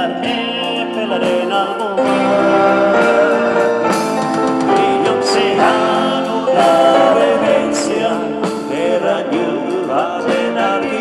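Live band playing a song with a voice singing over electric guitar, keyboard and drums; it gets louder about two seconds in.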